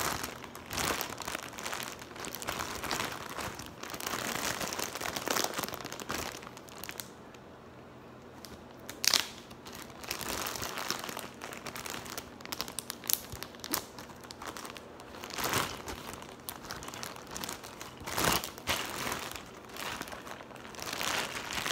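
A zip-top plastic bag crinkling and a cloth towel rustling as they are handled, unwrapped and wrapped again, in irregular bursts. There is one sharp click about nine seconds in.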